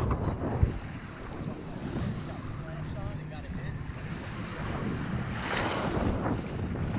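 Wind buffeting the microphone over small waves washing onto the beach, with a louder rush of water about five and a half seconds in.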